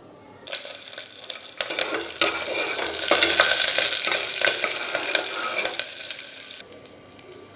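Green chillies and whole spices sizzling in hot ghee in a pan while being stirred, with frequent sharp clicks of the stirring spoon on the pan. The sizzle starts about half a second in and drops away sharply near the end.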